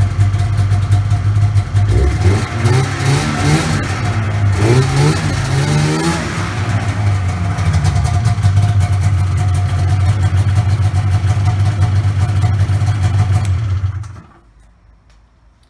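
1992 Polaris XCR 440 snowmobile's two-stroke twin engine running, revved in several quick rises and falls between about two and six seconds in, then idling steadily before it stops near the end. The revs test the rebuilt primary clutch's engagement, which comes in right around 4200 RPM with the new spring and weights.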